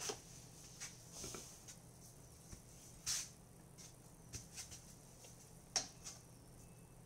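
Faint brushing and rubbing of bread dough being rolled into balls under the palm on a floured wooden board, a few short strokes, with one sharp tap a little before six seconds in.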